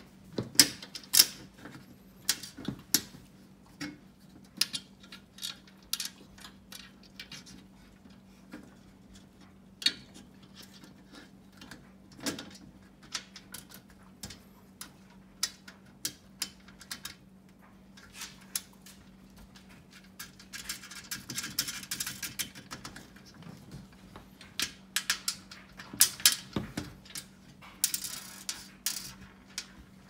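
Small metal clicks and clinks as machine screws and nuts are handled and fitted into the sheet-steel corner leg and frame of a mid-century typewriter table. The clicks come irregularly throughout, with a denser stretch of rattling a little past the middle and again near the end.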